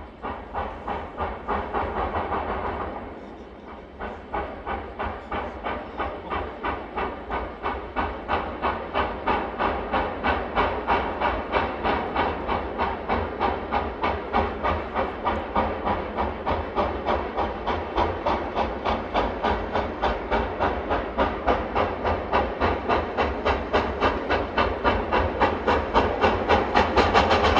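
Reading T-1 4-8-4 steam locomotive working hard under load as it accelerates its train, its exhaust chuffing in a steady rhythm of roughly three beats a second. The beat dips briefly about three seconds in, then picks up again and grows louder as the engine approaches.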